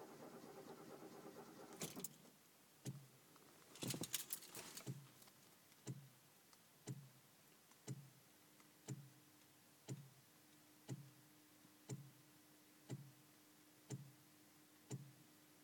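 Relay in a DeLorean's relay compartment clicking steadily about once a second after the ignition is switched off; the owner is unsure whether it is normal. A steady hum cuts off about two seconds in, and keys rattle briefly about four seconds in.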